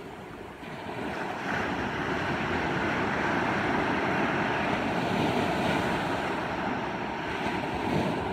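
Small waves breaking and surf washing up onto a sandy beach: a steady rush of water that swells about a second in and peaks briefly near the end.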